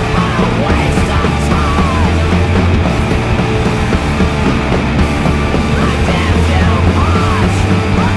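Punk band recording: distorted electric guitar, bass and drums playing loud and aggressive.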